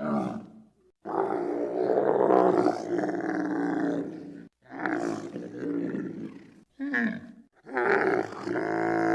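Giraffe calling: a series of drawn-out, pitched calls with short breaks between them, the longest lasting about three seconds.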